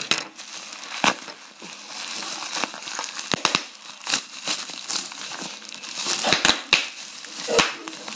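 Bubble wrap being handled and unwrapped from a packed item: continuous plastic crinkling with sharp crackles scattered throughout.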